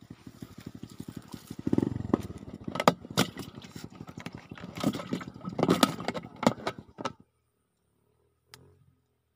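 A small engine running at idle with an even, rapid chugging, with several sharp knocks and clicks over it; it stops abruptly about seven seconds in.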